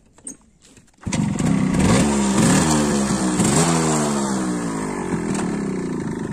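Yamaha RX 135's two-stroke single-cylinder engine, cutting in abruptly about a second in and revved up and down several times with the bike standing.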